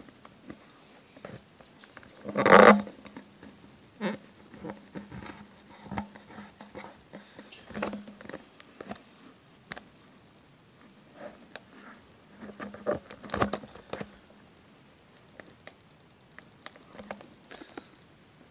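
Handling noise from a phone being carried and moved about: scattered taps, rubs and knocks against its microphone, the loudest a short burst about two and a half seconds in.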